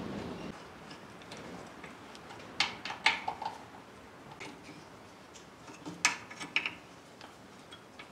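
Scattered sharp metallic clicks and clinks of hand tools on steel as bolts are tightened, fixing a hydraulic snow-blade valve onto a steel mounting plate. The clicks come in two small clusters, a few seconds in and again past the middle.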